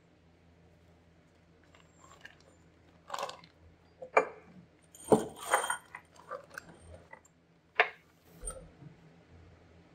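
Bagged bolts, nuts and washers from an air bag suspension kit clinking, with the plastic bags rustling, as the hardware is handled on a wooden workbench. It is a run of irregular clinks and rustles that starts about three seconds in and is loudest around the middle.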